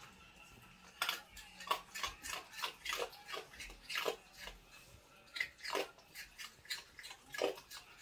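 A raccoon crunching ice in its mouth: sharp, irregular crunches starting about a second in, roughly three a second.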